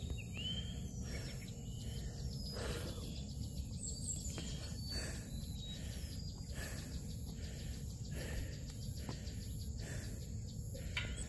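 Birds calling in scattered short whistles over a steady insect buzz and a low, even rumble of background noise.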